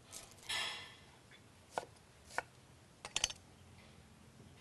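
A kitchen knife cutting an onion on a chopping board: a short crisp slicing crunch about half a second in, then single sharp knife knocks on the board and a quick flurry of taps near the end.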